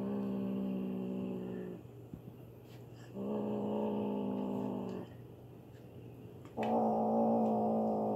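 Kitten growling over a piece of chicken held in its mouth: three long, steady growls of about two seconds each, with short pauses between them. It is a food-guarding growl, warning the other kittens off its meal.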